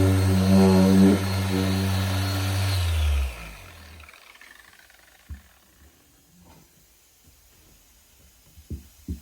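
Electric car-polishing buffer running steadily with a low hum and a high whine, then switched off about three seconds in and winding down to a stop. A few short knocks follow near the end.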